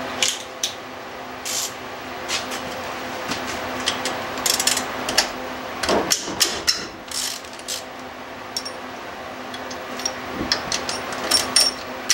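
Socket wrench working the cylinder head bolts of a Kohler lawn-tractor engine: scattered metal clinks and ratchet clicks as the socket is fitted and the bolts are worked loose, heard over a steady hum.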